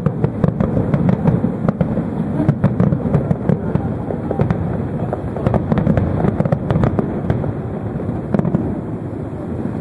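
Harbour fireworks display: a sudden, dense volley of bangs and crackling over a continuous low rumble. It thins out near the end.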